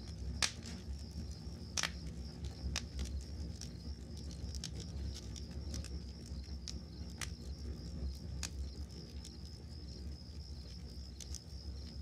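Wood campfire crackling with scattered sharp pops, the loudest about half a second and nearly two seconds in, over a steady low rumble and the continuous high trill of crickets chirping.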